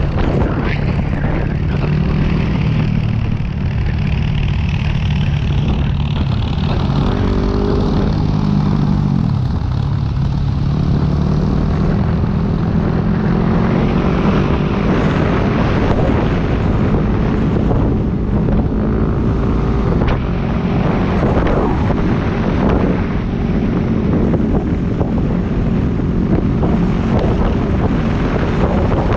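Yamaha WR250X's single-cylinder four-stroke engine running while riding along, with wind rushing over the microphone. The engine note shifts up and down a few times about a third of the way in, then holds steady.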